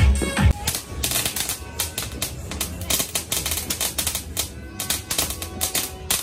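Small ground firework spraying sparks and crackling: a rapid, irregular run of sharp pops and crackles that starts about a second in. Dance music with a thumping beat plays under it at the start.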